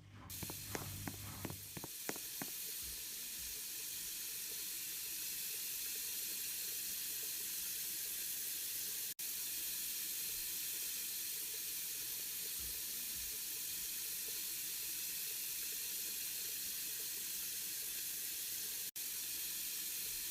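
Water rushing into a Beko washing machine as it fills: a steady hiss that starts abruptly, with a few clicks and knocks in the first two seconds.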